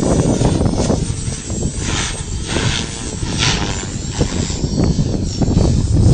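Strong wind buffeting the microphone, with a radio-controlled model helicopter running and its whine coming and going in the middle.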